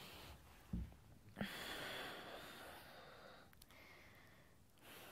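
A woman's slow, full breaths, heard as a quiet hiss of air, with one long breath running a couple of seconds. Two soft low thumps come about a second in.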